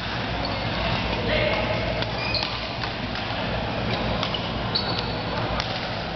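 Badminton doubles rally: sharp clicks of rackets striking the shuttlecock and a few short high squeaks of shoes on the wooden court floor, over a steady background of chatter in the hall.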